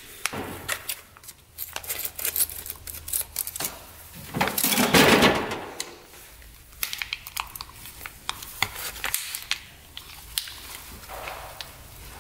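Foil grease sachet crinkling and tearing as it is opened and squeezed out to pack a CV axle boot, with scattered clicks and rustles of handling and a louder crinkling burst about four seconds in.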